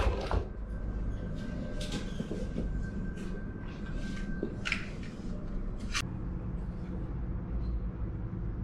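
Repair-shop background noise: a steady low hum with a faint high whine that stops partway through, and about five sharp clicks spaced roughly a second or more apart.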